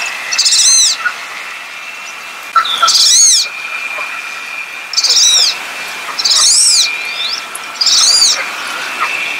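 Wood duck calling: five high, squealing calls, each rising then falling in pitch, about one every second and a half.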